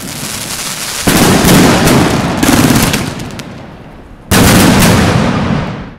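Fireworks going off loudly: a burst about a second in, another soon after, and a third past the middle, each trailing off in a long hiss. The sound cuts off suddenly at the end.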